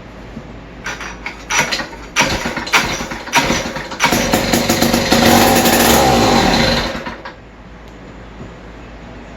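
Motorcycle engine: several short bursts, then about three seconds of steady running that cuts off suddenly.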